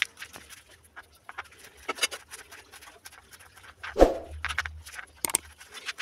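Kitchen knife slicing red onion on a plastic cutting board: quick, irregular taps as the blade cuts through the onion onto the board, with one heavier knock about four seconds in.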